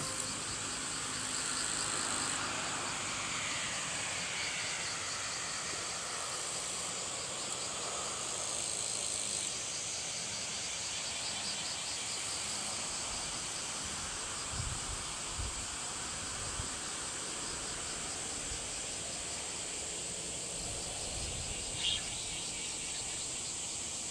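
Insects chirring steadily in a dense high pulsing hiss, with a few soft low thumps around the middle and a short sharp click near the end.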